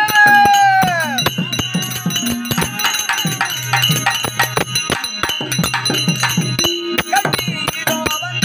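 Tamil therukoothu folk-theatre music: a held melody note that bends downward about a second in, over quick, dense percussion strokes and a repeating low bass pattern.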